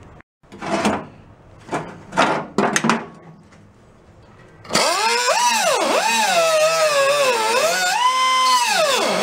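A whiz wheel (small handheld cutoff wheel) cutting off old rusted hardware. A few short bursts come first, then about five seconds in a loud whine starts that drops sharply in pitch and climbs back again and again.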